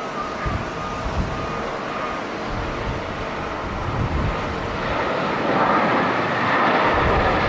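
Jet airliner's engines, a rushing noise that swells about two-thirds of the way in and stays loud, with strong gusty wind buffeting the microphone.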